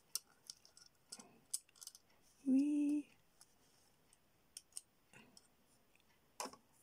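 Light, irregular clicks and taps of fingers fitting a small spacer between two stacked circuit boards, about ten in all. About two and a half seconds in comes a brief hummed 'mm' from a voice.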